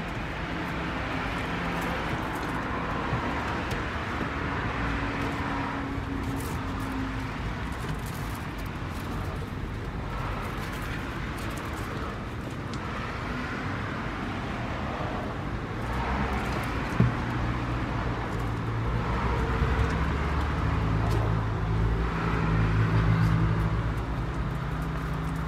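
Steady outdoor background noise with a low motor hum that grows louder in the last third, and one sharp click about two-thirds of the way through.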